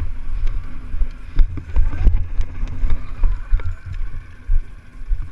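ATV running with a low, uneven rumble, with a few sharp knocks about one and a half to two seconds in.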